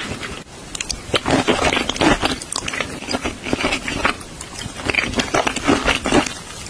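Close-up eating sounds of a person chewing raw shrimp and rice, with quick, irregular wet clicks and smacks of the mouth.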